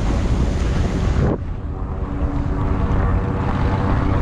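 Boat motor running steadily, with wind noise on the microphone. A broad hiss fades out about a second in, leaving a steady droning hum.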